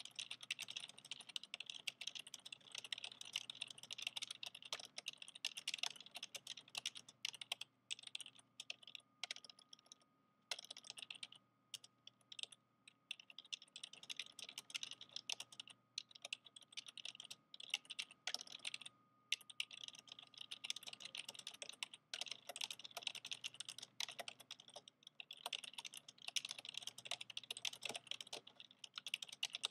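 Typing on an old PC's loud, clicky keyboard: fast runs of keystrokes, slowing to sparser presses with short pauses through the middle, then speeding up again.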